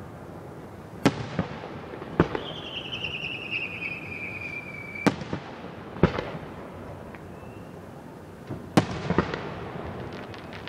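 Fireworks display: five loud bangs of bursting aerial shells, a second or few apart, some followed by crackling and echo. Between the second and third bangs a whistling firework gives a falling whistle for nearly three seconds, ending in a bang.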